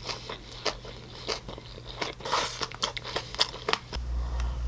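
Close-miked mouth sounds of a person eating rice and rice cakes: wet chewing with many small, irregular lip smacks and clicks.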